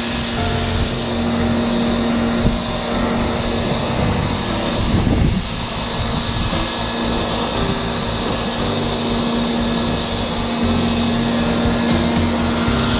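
Pressure washer running steadily, its high-pressure jet hissing as it blasts dirt off a concrete sidewalk, with background music over it.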